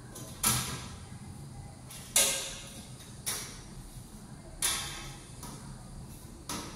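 A metal window grille knocking against the window frame as it is tilted and fitted into place: five sharp clanks at uneven gaps, each ringing briefly.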